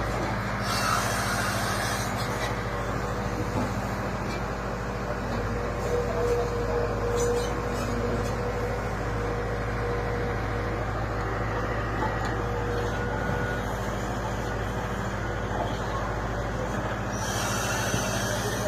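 Bull backhoe loader's diesel engine running steadily under digging load, with a brief rushing hiss near the start and again near the end.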